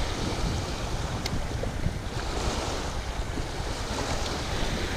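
Small waves breaking and washing over a pebble shoreline, with wind buffeting the microphone.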